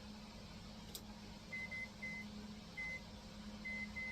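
Microwave oven keypad beeping, seven short beeps at uneven spacing as the timer is set for three more minutes, over a low steady hum.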